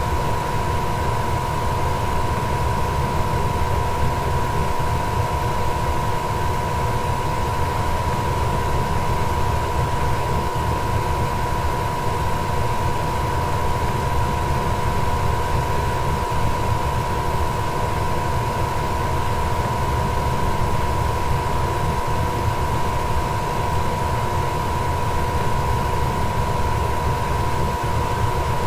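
Goodman furnace running steadily: a constant rush of air from the blower with a steady hum and a whine held on one pitch.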